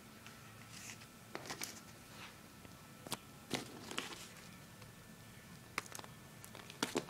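Scattered light clicks and paper rustles from hands handling a paper model pistol, a few at a time with short pauses between.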